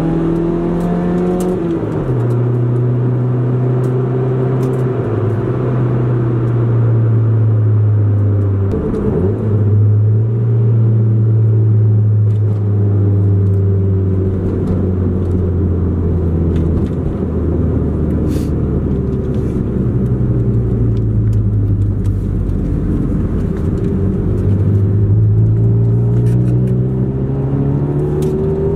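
1997 Honda Civic's four-cylinder engine heard from inside the cabin while driving. Its pitch climbs, then drops sharply about two seconds in at a gear change of the manual gearbox, holds fairly steady while cruising, and climbs again under acceleration near the end.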